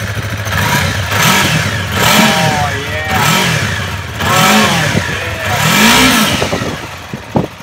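A brand-new 2017 Yamaha R3's 321 cc parallel-twin engine, just started, is revved in about five quick throttle blips. Each blip rises and falls in pitch, and the engine settles back toward idle near the end.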